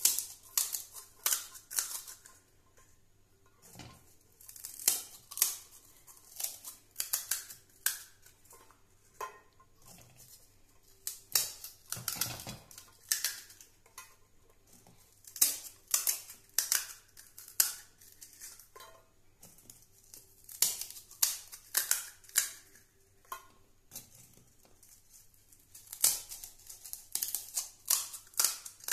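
Crisp fried golgappa (pani puri) shells being cracked open with a thumb one after another, each giving a quick cluster of sharp crackles, with short pauses between them.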